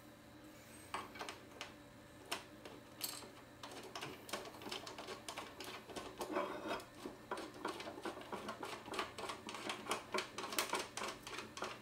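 Small irregular clicks and rattles of screws with washers being threaded by hand into a Mikrotik DynaDish 5 antenna's mounting bracket, sparse at first and coming fast and thick from about halfway through.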